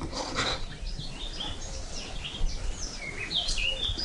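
Small birds chirping: a run of short, high notes, growing busier near the end.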